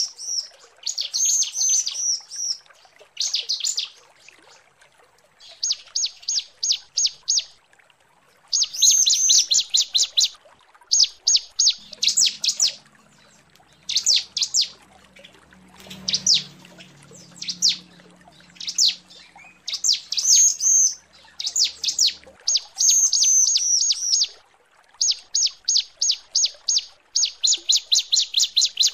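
Female ciblek (bar-winged prinia) calling: repeated bursts of rapid, high-pitched chipping notes, each burst about a second long with short pauses between. It is the female's call to a male, played as a lure.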